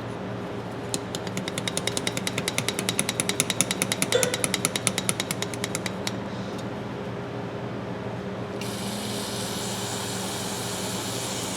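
Rapid rattling clicks, about eight a second, for several seconds, then a steady hiss of an aerosol can of carburetor cleaner spraying into a pair of pliers near the end.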